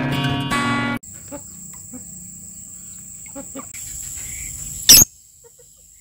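Guitar music that stops abruptly about a second in. Then outdoor ambience: a steady high-pitched insect drone, like crickets, with a few faint scattered bird chirps, broken near the end by one sudden sharp loud sound, after which it drops much quieter.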